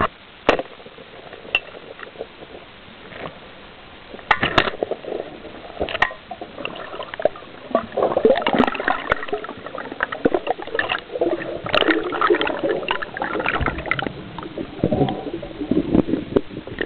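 Water rushing and bubbling around an underwater camera's housing, choppy and loud from about eight seconds in. In the first few seconds there are a few sharp clicks and knocks against the housing.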